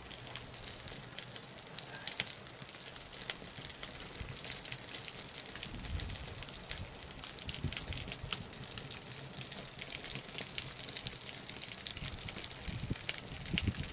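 Wood fire burning in a ground pit, crackling steadily with many small sharp pops over a constant hiss.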